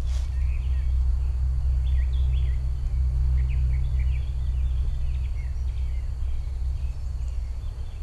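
Steady low rumble, with many short high bird chirps scattered through it and a faint steady high tone above.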